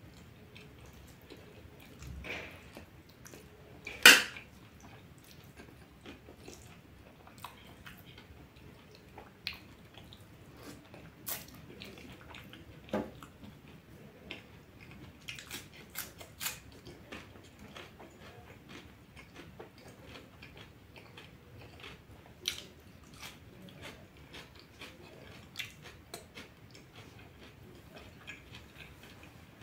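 A person chewing food, with scattered sharp clicks and clinks of cutlery and fingers against a stainless steel plate; the loudest clink comes about four seconds in.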